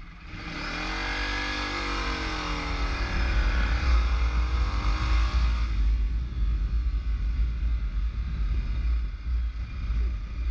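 A Ducati Multistrada's V-twin engine running under way, with wind rumbling on the microphone. For about the first six seconds, while a car is passed close by, a louder rushing hiss sits over the engine and the engine's pitch dips and then rises. After that the low wind rumble dominates.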